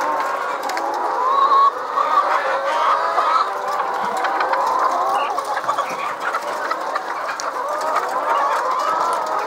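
A large flock of caged hens clucking continuously, many birds calling over one another at once.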